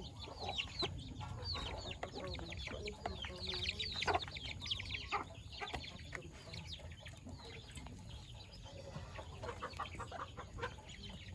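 Chickens clucking, with many short, quick chirps overlapping throughout.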